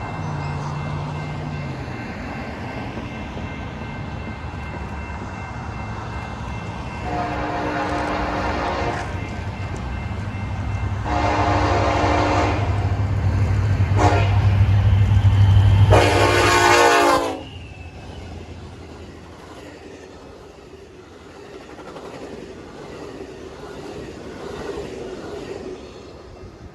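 Diesel train approaching with its engine rumble building while the multi-chime horn sounds long, long, short, long: the standard grade-crossing signal. Just after the last blast the sound drops sharply, leaving the quieter run of the passing train.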